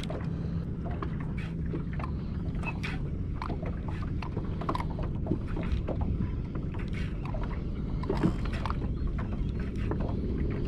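Bass boat sitting on open water: a steady low hum with irregular small clicks and slaps throughout, and a little wind on the microphone.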